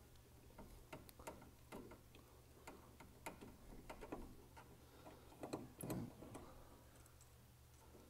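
Faint, irregular small metallic clicks and ticks of a screwdriver and screw being worked into a threaded hole in a tankless water heater's gas valve block, with a louder cluster of clicks about six seconds in.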